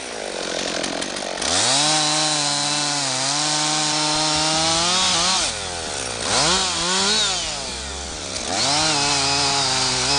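Husqvarna 55 two-stroke chainsaw revving from idle to full throttle and cutting into a log. It drops back to idle about halfway through, blips once, then revs up again and cuts on.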